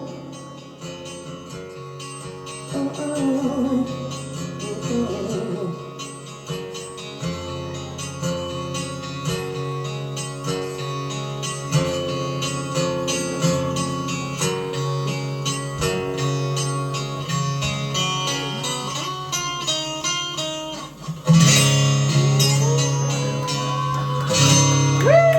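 Acoustic guitar playing an instrumental passage of picked notes and chords, growing louder with stronger strummed chords near the end.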